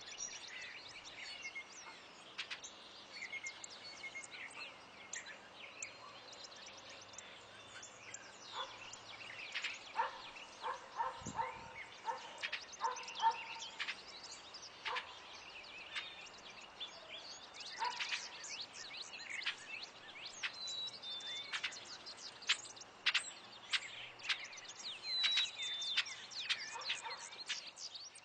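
Wild birds chirping and calling, with many short, sharp notes over a faint steady hiss and a run of lower notes about ten to thirteen seconds in.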